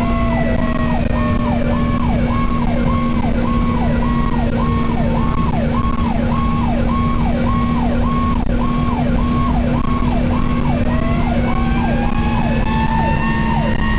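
Fire engine siren heard from inside the cab, sweeping quickly up and down about one and a half times a second. A slower siren tone glides down over the first few seconds and winds back up near the end, over a steady engine hum and road noise.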